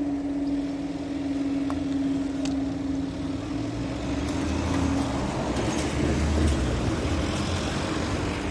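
Level crossing warning alarm sounding a steady tone, which stops about five seconds in as the barriers lift. A low rumble follows.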